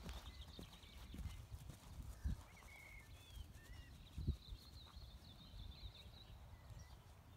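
Horse's hooves thudding faintly on grass as it canters, then slows to a halt; one heavier thud about four seconds in.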